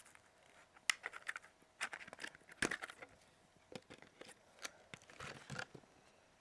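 Plastic packaging of a new RAM module being opened and handled: irregular crinkling with scattered sharp clicks and snaps.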